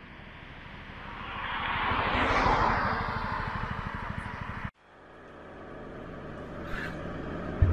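A car passing close by on the road, its tyre and engine noise swelling to a peak and fading. Then, after an abrupt cut, steady road noise with a couple of low thumps near the end.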